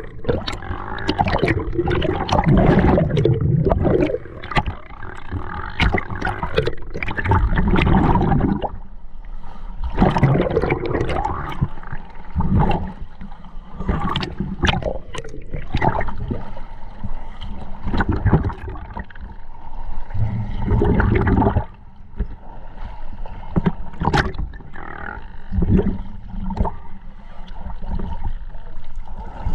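Scuba diver's breathing heard underwater: exhaled bubbles rushing and gurgling out of the regulator in irregular surges of several seconds, with scattered sharp clicks between them.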